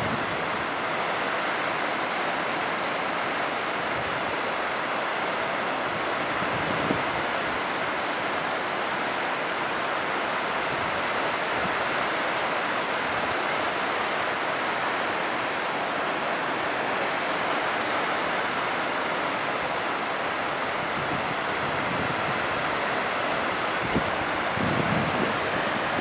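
Steady rush of a cascading mountain waterfall, an even hiss of falling water with no change. Near the end, a few low gusts of wind buffet the microphone.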